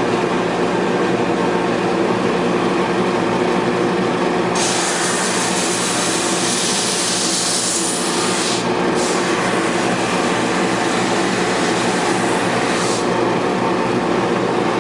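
Grizzly G1079 drum sander and its dust collector running steadily with a hum. About four and a half seconds in, a harsh high hiss starts as a plywood board is fed under the abrasive drums and sanded; it breaks briefly about halfway and stops near the end as the board comes through.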